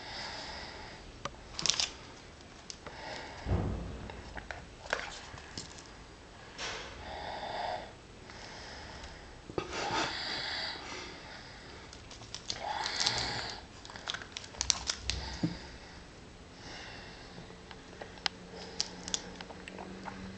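A man snoring in his sleep: irregular snoring and sniffing breaths every one to three seconds, with a few faint clicks between them.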